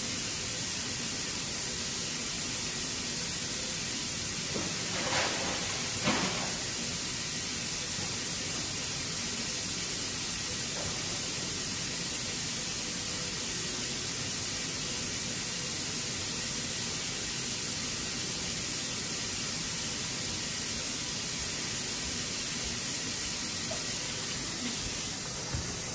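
Kitchen faucet running steadily into a bucket, an even hiss of water, with two light knocks about five and six seconds in.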